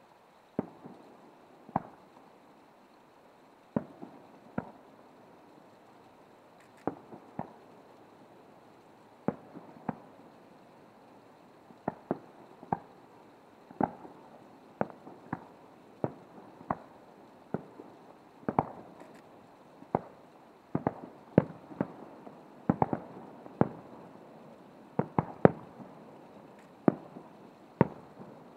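Aerial firework shells bursting in a long string of sharp bangs, each with a short echoing tail. The bangs come faster and louder toward the end.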